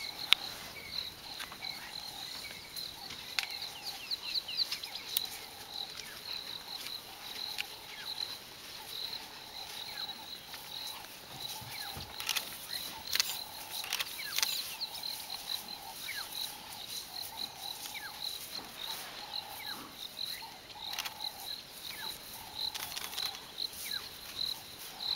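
Insects calling in the bush: a high chirp repeated a few times a second, with a lower pulsing call about once a second, and scattered short clicks and rustles.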